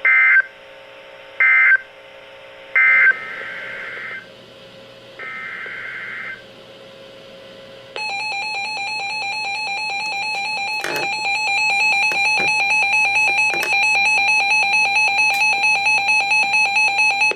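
NOAA Weather Radio alert tones on a weather radio: three short, loud screeching digital data bursts (SAME code) in the first few seconds, then two longer, fainter bursts. About 8 s in, a steady pulsing alert tone starts and holds to the end, marking the start of the next warning.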